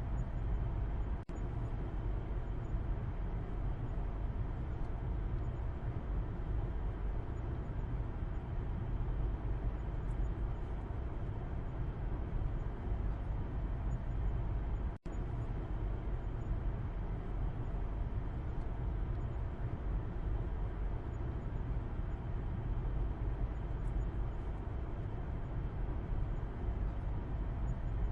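Steady low rumble of road and tyre noise heard from the back seat of a moving car. It cuts out very briefly twice, about a second in and about halfway through.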